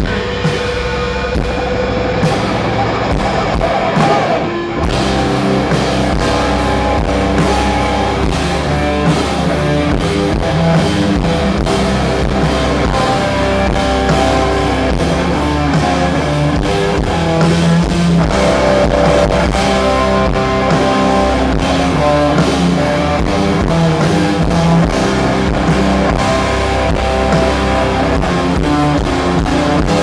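Live grunge band playing loud rock: electric guitars through amplifiers over a drum kit, with the full band coming in harder about five seconds in.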